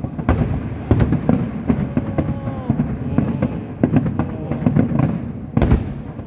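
Aerial fireworks going off in a dense, irregular string of sharp bangs and crackles, with one loud deep boom near the end.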